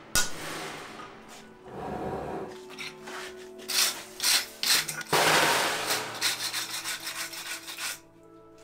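Steel wire brush scrubbing the scale off a glowing-hot layered Damascus steel billet on an anvil in repeated scraping strokes, cleaning it before the first fold; the longest, loudest scrub comes about halfway through.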